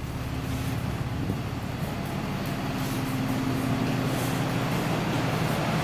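Alexander Dennis Enviro400 MMC double-decker bus idling at the stop: a steady, even engine hum with a few low tones, growing a little louder over the first couple of seconds.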